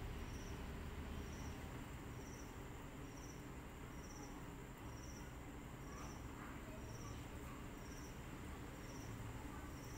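A cricket chirping steadily, short high chirps a little more than once a second, over a faint low rumble.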